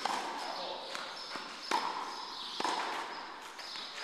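Tennis ball struck by a racket and bouncing on the clay court: a few sharp pops spaced a second or so apart, each ringing on in the echo of a large indoor tennis hall.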